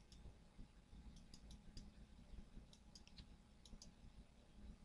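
Scattered faint computer-mouse clicks, some in quick pairs, over near-silent room tone: picking the corners of crossing-selection windows.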